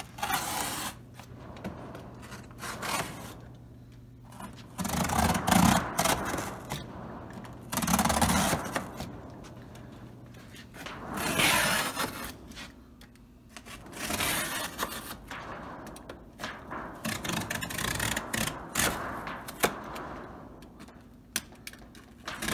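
Razor knife blade scraping as it cuts through the wall panel along the framed opening, in irregular strokes a second or two long with short pauses between.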